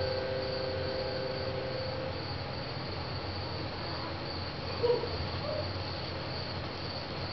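Steady high cricket chirping, with the last sustained musical notes fading out during the first two seconds and one brief short tone about five seconds in.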